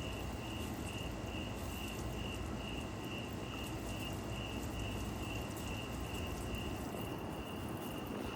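A cricket chirping steadily, one high note pulsed about three times a second, over low background noise.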